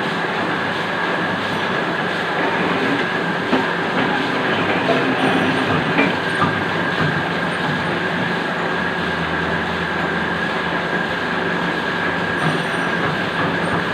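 QZ201 cutting machine running steadily: a constant high whine over a broad mechanical noise, with a few light clicks.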